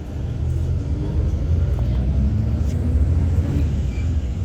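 City bus running, heard from inside the cabin: a steady low engine and road rumble, with a faint whine that rises a little in pitch in the middle as the bus moves along.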